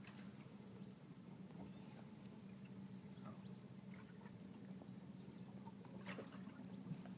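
Faint steady low hum of a small river boat's motor under way, with a thin steady high-pitched whine above it and a few faint chirps.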